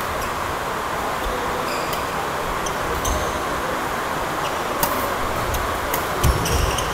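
Indoor badminton hall ambience: a steady rushing background noise, with a few short sharp clicks about three, five and six seconds in and a low thump just after the last.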